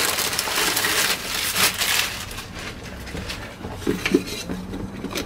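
Clear plastic bag crinkling and rustling as a mask is pulled out of it, busiest in the first two and a half seconds, then quieter handling noise with a couple of short knocks about four seconds in.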